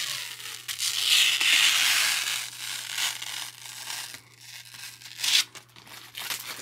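Clear protective plastic film being peeled by hand off a PC case's tempered-glass panel, a long tearing peel loudest a second or two in, then crinkling as the film comes free, with a brief sharp crackle about five seconds in.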